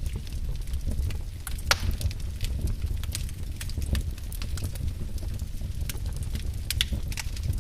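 Wood fire in a fireplace crackling, with irregular sharp pops over a steady low rumble; one louder pop about two seconds in.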